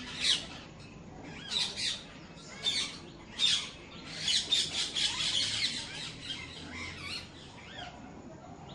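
Birds calling in repeated bursts of short squawks and chirps, with a dense run of calls about four to five and a half seconds in, tailing off near the end.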